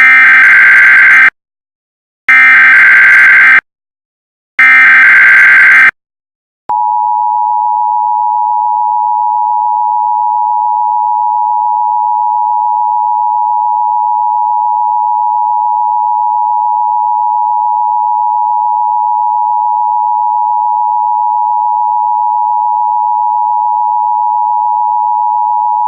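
Emergency Alert System header: three short bursts of screeching SAME data tones about a second apart, then, about seven seconds in, the steady two-tone EAS attention signal holding unchanged.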